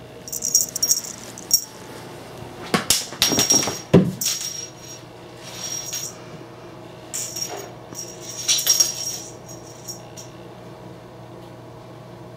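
A cat toy clinking and rattling in short bursts during a kitten's play, with a few heavier thumps about three to four seconds in.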